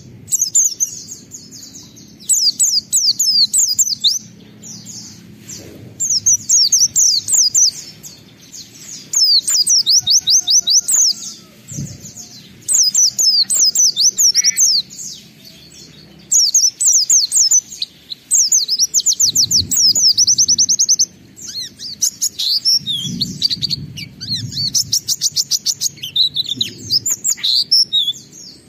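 White-eye (pleci) singing in rapid, high twittering phrases of one to two seconds each, with short pauses between them.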